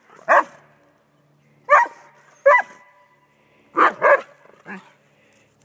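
Doberman barking at a snake: about six short, sharp barks, two of them in quick succession about four seconds in.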